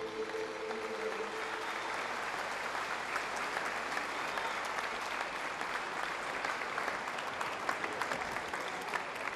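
Audience applauding, a dense patter of many hands clapping, as the last held notes of the band fade out in the first second or so.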